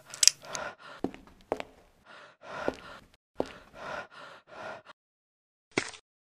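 A man gasping and breathing hard in quick, ragged breaths, about two a second, with a few faint scuffs and taps. A short sharp knock comes near the end.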